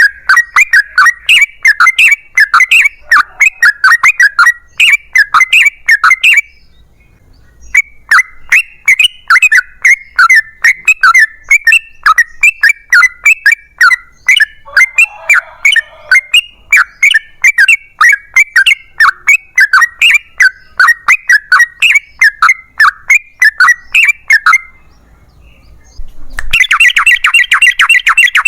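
Yellow-vented bulbul (trucukan) singing a long run of quick, chattering notes, about three or four a second, broken by two short pauses, with a faster, denser run near the end.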